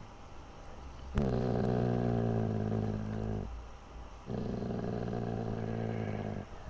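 Dog growling threateningly: two long, low growls, the first starting about a second in and the second a little after four seconds.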